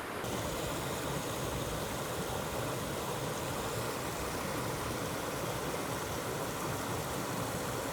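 Mountain creek water rushing steadily.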